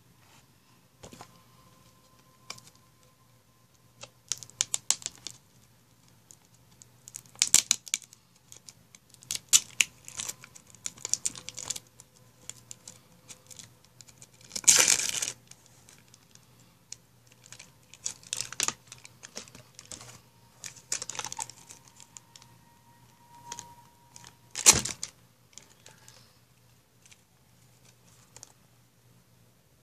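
Plastic juice bottles being handled and moved on a table: irregular clusters of light clicks and scrapes, with a louder rustle about halfway through and a sharp knock near the end.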